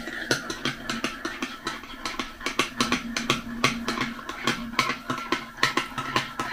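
Metal teaspoon stirring a drink in a ceramic mug, clinking against the sides in a quick, even run of about four or five light clinks a second.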